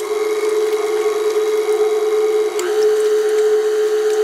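KitchenAid Artisan stand mixer running with its wire whisk beating cubed butter in the steel bowl: a steady motor hum that starts suddenly and holds an even pitch.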